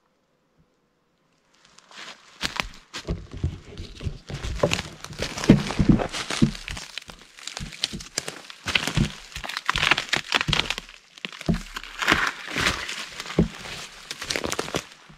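Dry twigs and dead brush rustling and snapping close to the microphone, with dull knocks, from someone moving through dead undergrowth. It starts about two seconds in and goes on as a dense, irregular crackle.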